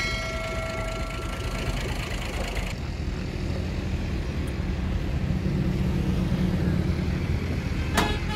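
Hino FG8J dump truck's diesel engine idling steadily, growing a little louder about halfway through. There is a sharp click near the end.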